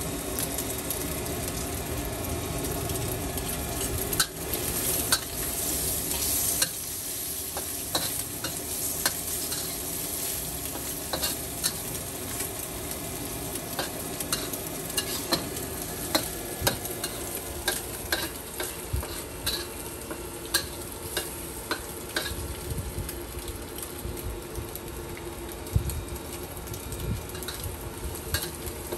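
Noodles stir-frying in a hot wok: a steady sizzle with a metal spatula scraping and clacking against the pan, a few loud knocks early on, then quicker regular taps about once a second.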